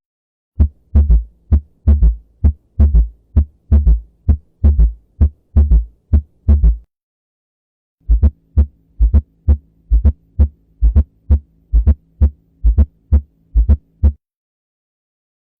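Human heart sounds: a regular run of paired lub-dub beats with a faint steady hum beneath them. The beats break off for about a second some seven seconds in and stop shortly before the end.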